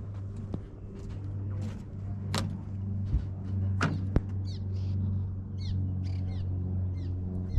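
A bird calling over and over, short high falling calls about twice a second through the second half, over a steady low hum. A couple of sharp clicks come a few seconds in.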